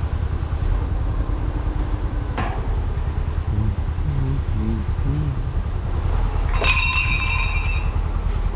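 Heavy piling rig's engine running steadily on the construction site. About seven seconds in there is a single metal-on-metal clang that rings for about a second.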